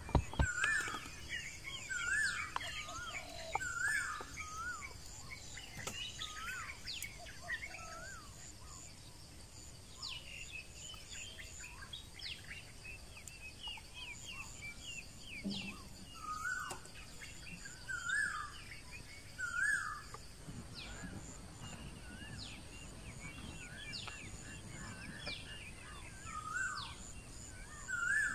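Forest birds singing: one bird repeats a short wavy phrase every couple of seconds over many scattered short chirps, with a faint steady high whine under them that stops about two-thirds of the way through.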